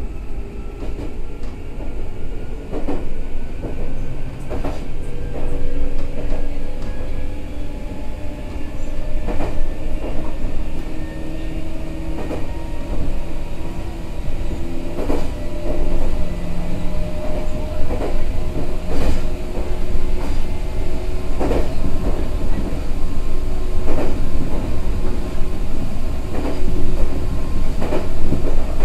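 Meitetsu 6000 series electric commuter train running: a motor and gear whine that climbs slowly in pitch through the first half and then holds, over steady wheel-and-track rumble, with the wheels knocking over rail joints every couple of seconds.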